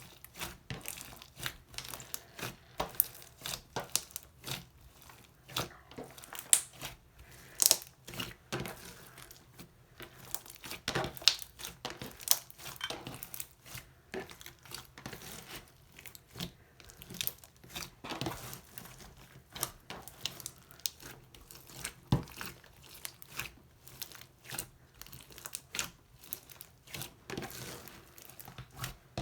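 Slime being kneaded, stretched and squished by hand, giving a dense, irregular run of sticky pops, clicks and crackles.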